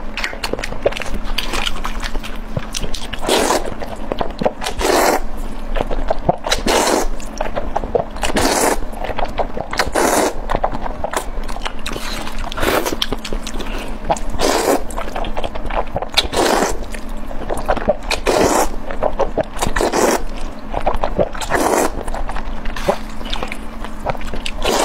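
Close-miked eating sounds: wet chewing and mouth smacking on food and noodles, with a short burst of noise every second or two.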